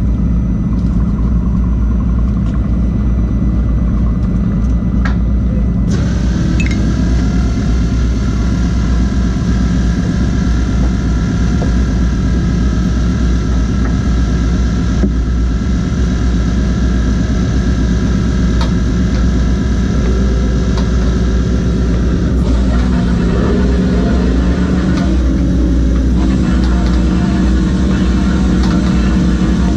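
Fishing boat engine running steadily with a low rumble. A higher machinery whine joins suddenly about six seconds in, and the tone wavers up and down about three-quarters of the way through as the load changes.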